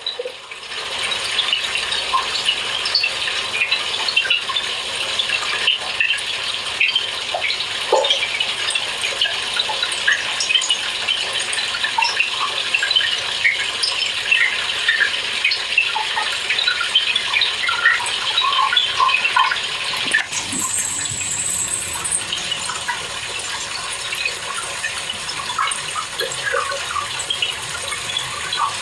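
Speed Queen TC5 top-load washer filling for a normal eco cycle: water gushing and splashing steadily into the tub, a harsh rushing with many small spatters. A brief higher hiss comes in about two-thirds of the way through.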